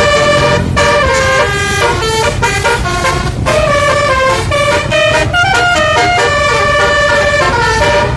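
A bus's musical "telolet" (basuri) horn playing a quick tune, its notes stepping up and down several times a second, over the low rumble of the bus.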